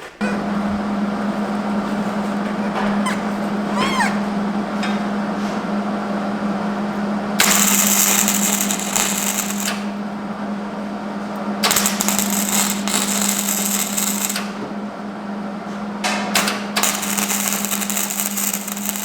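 Electric arc welder running while a steel saw-blade tab is welded to a hinge: a steady electrical hum under continuous arc crackle. The crackle grows sharper and hissier in three spells, about seven, twelve and sixteen seconds in.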